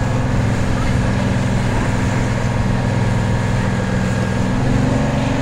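Tour boat's engine running steadily, a constant low hum with no change in pace.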